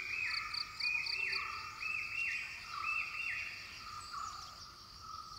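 Wild animal chorus of short chirping calls, repeated about twice a second, with a fainter lower series of calls beneath them, thinning out near the end.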